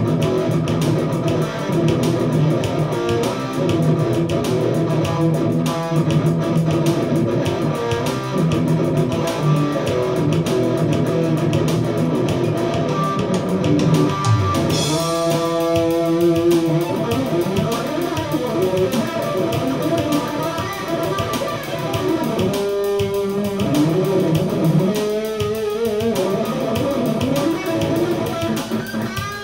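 Peavey SC-2 solid-body electric guitar with Kiesel alnico pickups, played through an amplifier: a busy improvised run of riffs and single notes, with a few ringing held chords about halfway through and again later.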